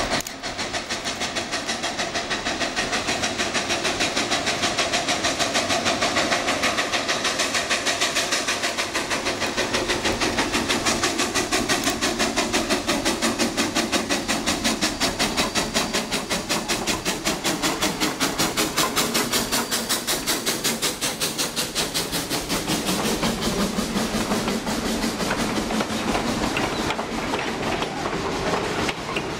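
Quincy Railroad No. 2, a 2-6-2T steam tank locomotive, working past with a fast, steady exhaust beat and hiss of steam, followed by its passenger cars rolling by with wheels clicking over the rail joints.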